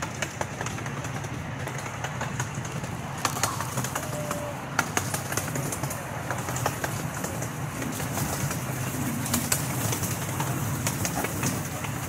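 Small amusement-park train riding along its track: a steady low rumble with scattered clicks and clacks, and a brief squeak about four seconds in.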